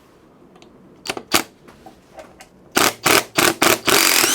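Cordless power driver run in short bursts, backing out the rear mudguard's screws: a couple of light clicks, then four quick pulses and a longer run with a rising whine near the end.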